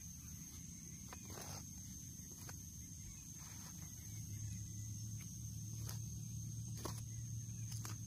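Hand hoe chopping into loose, freshly tilled soil: a few scattered dull strikes, over a steady low hum that grows louder about halfway through and a thin steady high tone.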